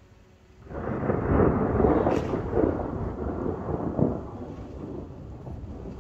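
Thunder: a sudden loud rumble breaks in just under a second in, with several sharper cracks within it, then slowly dies away to a low rumble.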